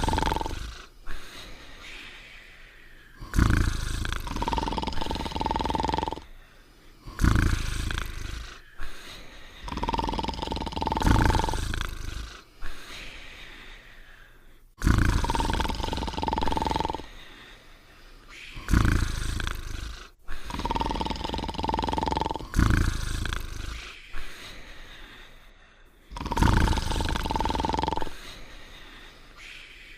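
Cartoon dogs snoring: a loud rasping snore on each breath in, followed by a steady whistle on the breath out. The cycle repeats about every four seconds.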